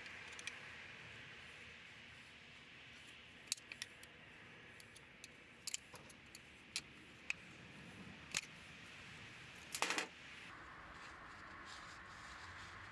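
Scattered light clicks and clinks of tools and metal parts being handled, about a dozen in all, the loudest a short clatter just before ten seconds in, over a faint steady hiss.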